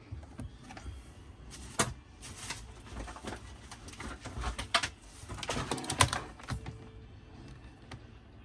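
Handling noise: a series of irregular sharp clicks and knocks with rustling between, the loudest about two, five and six seconds in.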